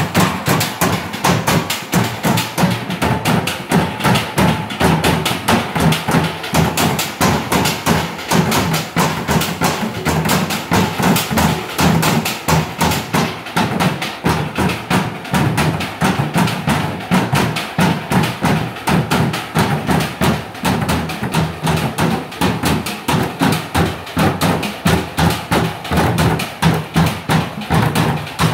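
An ensemble drumming with sticks on blue plastic water jugs and barrels, playing a fast, steady interlocking rhythm of hollow plastic strikes.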